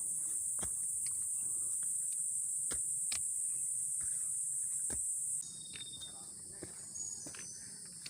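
Forest insects giving a loud, steady, high-pitched drone, with the irregular crunching steps of a hiker on the trail. About five and a half seconds in the drone cuts off abruptly and quieter insect hiss with a few short high calls follows.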